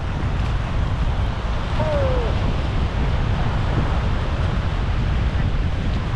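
Wind buffeting the microphone over the steady wash of surf breaking on a beach. A brief falling tone sounds about two seconds in.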